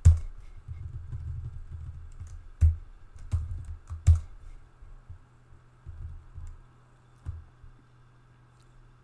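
Computer keyboard keys being struck in short irregular runs, with a few sharp louder clacks in the first half (the loudest right at the start), thinning out to occasional keystrokes later.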